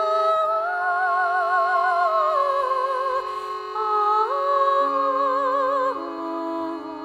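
Background music: a slow melody of held, wavering notes that slide between pitches over a sustained lower note.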